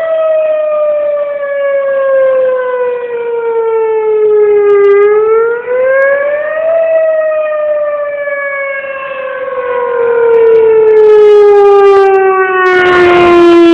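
Whelen Vortex R-4 outdoor warning siren sounding its wailing Attack tone: the pitch rises quickly about two seconds in, then falls slowly through the last several seconds. A loud burst of rushing noise cuts in about a second before the end.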